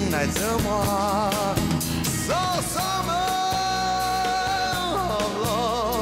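A pop song with band accompaniment. A singer holds one long note with vibrato through the middle, with shorter wavering sung phrases before and after it.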